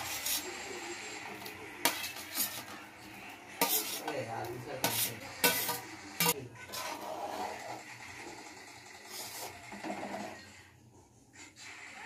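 A steel bowl knocking and scraping against a steel kadai as soya chunks and potato pieces are tipped into the gravy, with several sharp metal clanks in the first half. Softer scraping of a spatula stirring the curry follows.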